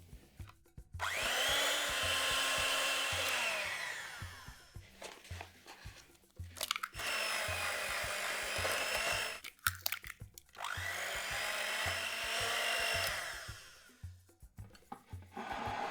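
Electric kitchen mixer running in three bursts of a few seconds each, its motor spinning up at the start of each run and winding down at the end. A soft musical track with a steady beat plays underneath.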